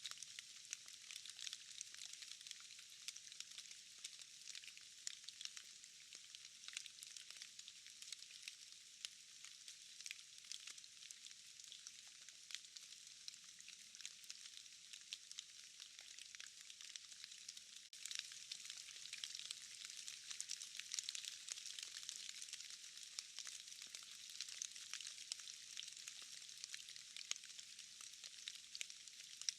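Rain falling in a forest: a steady, faint hiss of drops, peppered with many small ticks of drops falling from trees and moss. It gets a little louder just past halfway.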